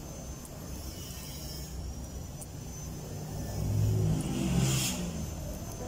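A motor vehicle engine rumbling, swelling louder with its pitch rising and falling about four seconds in, as it passes by.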